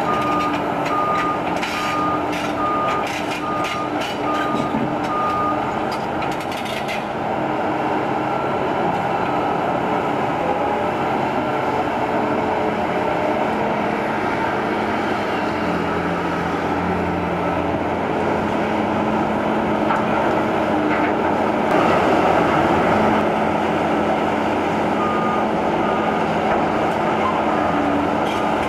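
Liebherr R 944 C hydraulic excavator's diesel engine running under load. Over the first five seconds its travel or reversing alarm gives a steady row of short beeps, about three every two seconds, and loose rubble clatters and knocks.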